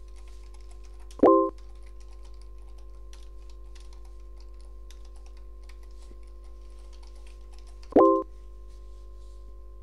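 Computer keyboard typing, quick light key clicks over a steady hum. Twice, about a second in and again near the end, a short, loud chat-site notification tone sounds as a message is sent and a reply arrives.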